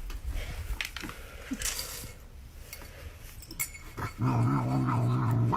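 A dog growling low and steady for about a second and a half, starting about four seconds in, after a few faint clicks and rustles.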